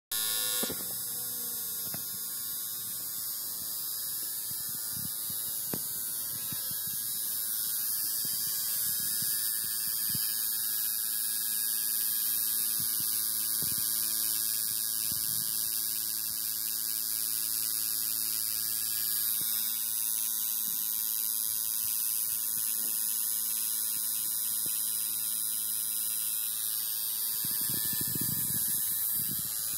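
Electric tattoo machine running with a steady buzzing hum that does not change in pitch, with a few faint knocks of handling.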